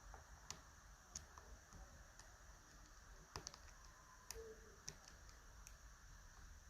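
Faint, scattered small metallic clicks, about seven in all and irregularly spaced, from a TESA T-12 lock and lockpicking tools being worked by hand, against near-silent room tone.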